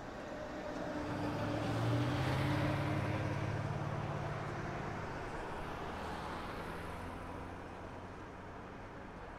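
A motor vehicle drives past close by: its engine hum swells to a peak about two seconds in, then fades away over the next several seconds, over steady city street noise.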